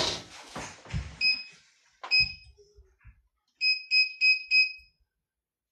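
Electric oven's control panel beeping as its buttons are pressed: a clatter and a low thump, then single short beeps about one and two seconds in, then four quick beeps near four seconds in.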